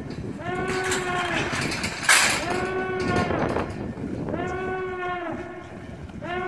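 A warning horn sounding four steady blasts, each about a second long and about two seconds apart. A short loud rush of hiss comes about two seconds in.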